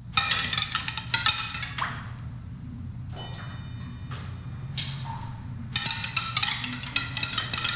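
Pebbles dropping out of a melting ice block and clattering down onto a wooden structure of pipes below, each strike leaving a brief ringing tone. There is a flurry of strikes at first, a few single knocks in the middle, and another flurry near the end, over a steady low hum.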